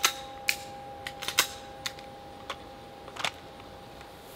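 A quick run of sharp metallic clicks and clacks as a Sig P220 pistol is handled and put back in its holster, about eight in three seconds.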